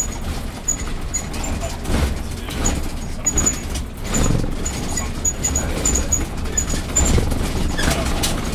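Inside a RATP city bus on the move: steady low engine and road rumble, with a few knocks from bumps and faint high ticks repeating irregularly from the cabin.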